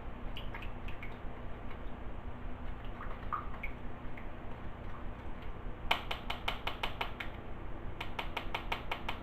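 Slime mixture of clear glue, water and colouring being stirred with a stick in a cup: the stick knocks against the cup's side in two quick runs of clicks, about eight a second, starting about six and eight seconds in.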